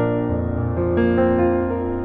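Background piano music, soft sustained chords with a new chord coming in about a second in.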